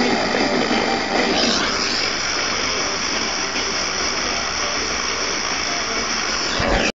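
FM radio tuned to 99.9 MHz receiving a weak, distant station by tropospheric scatter: steady static hiss, with faint traces of the programme in the first second or so, then only noise as the signal fades out.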